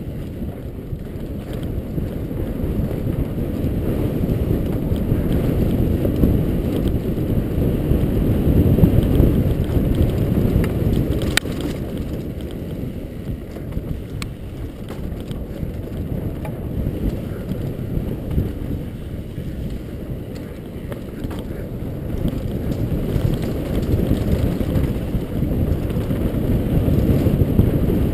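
Wind rushing over the camera microphone and the rumble of a mountain bike's tyres and frame over a dirt forest trail during a fast descent, swelling and easing with speed, with a few clicks, the sharpest about eleven seconds in.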